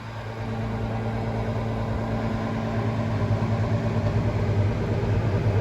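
Tractor engine running steadily, heard from inside the cab as a low, even hum that grows a little louder over the first second.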